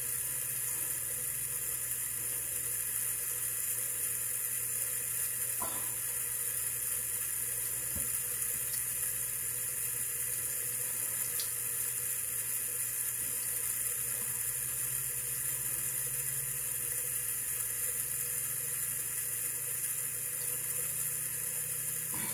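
Steady hiss of water running from a bathroom tap, with a couple of faint clicks.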